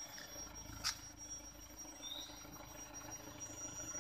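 Toyota Hilux pickup's engine running low and faint as the truck crawls forward, under a thin steady high tone. One sharp click comes about a second in and a short chirp about two seconds in.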